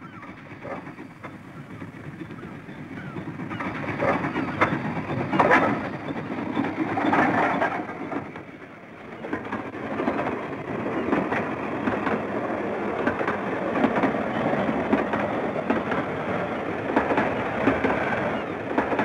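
Steam tram train running past: the locomotive and its carriages grow louder over the first four seconds, then run on steadily with irregular clicking and clatter from wheels and carriages.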